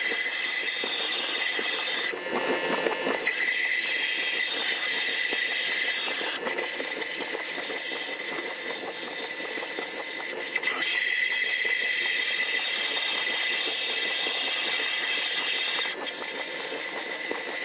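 Vapor honing cabinet's blast nozzle spraying a wet slurry of air, water and fine silica media onto an aluminum carburetor body: a steady hiss that shifts a little a couple of times as the part is turned under the spray.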